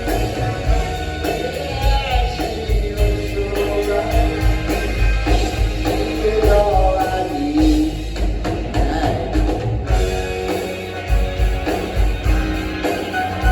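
Live rock band playing, with electric guitars, a steady drum beat and sung vocals.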